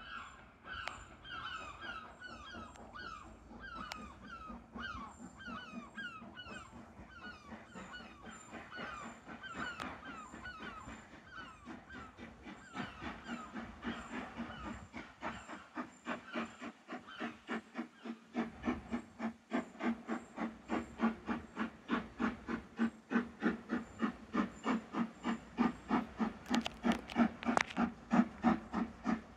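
LMS Black Five 4-6-0 steam locomotive 44871 pulling away from a near standing start, its exhaust beats echoing through the cutting. The beats quicken from about two a second to three or four a second and grow louder as the engine draws nearer.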